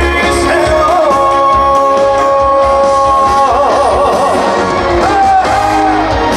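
Live trot ballad with band accompaniment: a long held melody note that breaks into a wide wavering run about three and a half seconds in, then settles on a new held note near the end.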